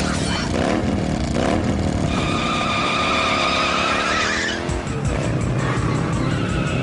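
Cartoon battle soundtrack: action sound effects mixed with background music, with a steady high whine over a warbling lower sound from about two to four and a half seconds in.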